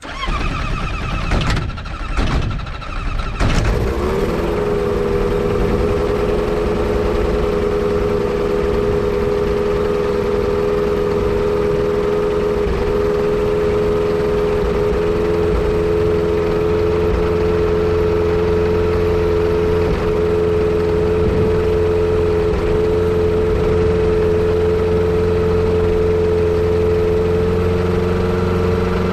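Yamaha Apex four-cylinder engine in a Kitfox airplane cranking over, catching about three and a half seconds in, then idling steadily.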